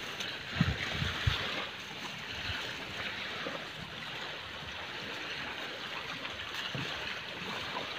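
Steady rushing seaside ambience of wind and waves, with a few soft knocks in the first couple of seconds.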